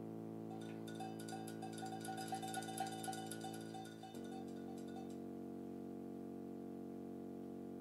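Live band's closing chord held out: a steady sustained chord with a fast flurry of light taps and short repeated notes over it for the first few seconds, then a change about four seconds in to a single held chord that rings on unchanged.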